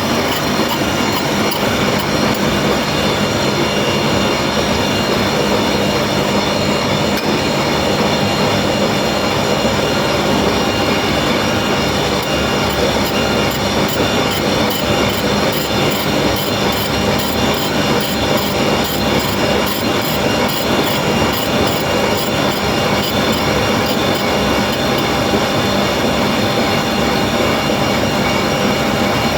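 Gear grinding machine running steadily: a dense, even grinding noise with several steady high tones over it.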